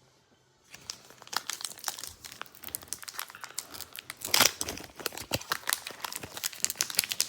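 Foil wrapper of a Pokémon booster pack crinkling in the hands and being torn open, starting under a second in, with a louder rip about four seconds in.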